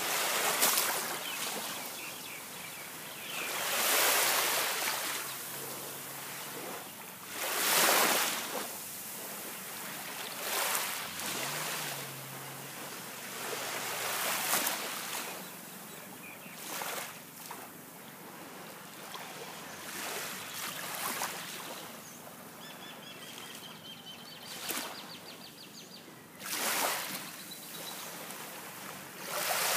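Small waves washing onto a sandy beach from a calm sea, each wash swelling up and falling away, one every three or four seconds.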